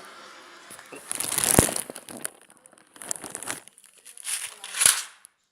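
Plastic sweet wrapper crinkling and rustling in several short bouts, handled close to the microphone.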